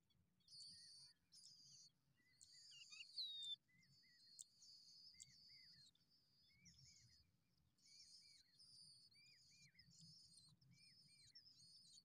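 Faint, high, thin begging cheeps from skylark nestlings, coming in short repeated bursts. Under them a softer two-note chirp repeats about once a second.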